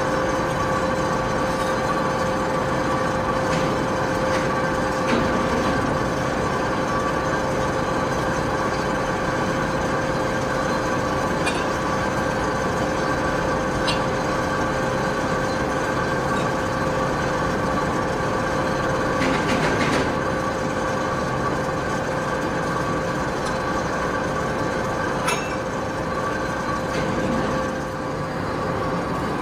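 Machine tool running steadily, a constant hum and whine with a few faint ticks scattered through it.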